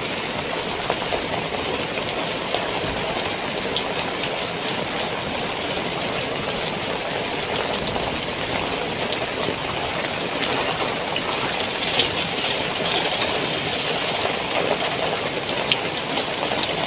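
Heavy rain beating on a tent, heard from inside as a steady dense hiss, with a few sharp ticks, the loudest about two-thirds of the way through.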